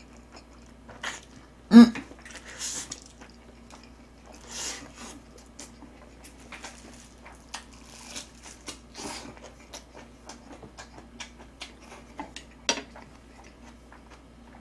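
Close-up eating sounds of a person chewing jjapaghetti noodles and cabbage kimchi: wet lip smacks and many small mouth clicks, with a couple of slurps early on. A brief voiced grunt about two seconds in is the loudest sound.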